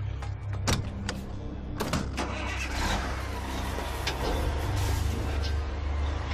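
Diesel truck engine, fuelled with cooking oil, starting up: a few sharp knocks in the first two seconds, then the engine noise swells about two seconds in and runs on steadily.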